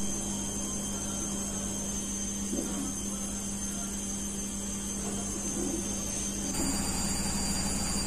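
Gorenje WHE60FS front-loading washing machine running a wash cycle: a steady motor hum with a thin high whine as the drum turns the wet laundry. About six and a half seconds in, the low hum grows stronger.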